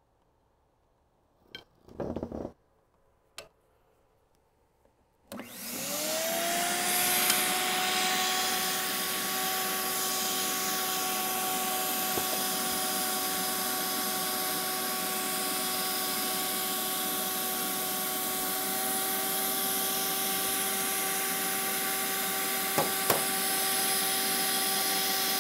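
A vacuum cleaner is switched on about five seconds in. Its motor whine rises quickly, then runs steadily with a strong rush of air as the hose sucks inside an empty tractor diesel tank. A few light knocks come before it starts, and two brief taps near the end.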